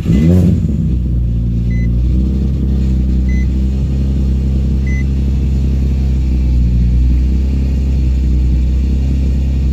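Nissan 350Z's 3.5-litre VQ35 V6 starting and catching right at the start, briefly flaring, then settling into a steady cold idle. A faint short warning chime beeps three times, about every second and a half.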